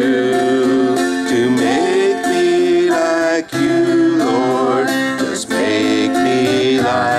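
Acoustic guitar accompanying a sung worship song, the voice holding long, wavering notes between lines.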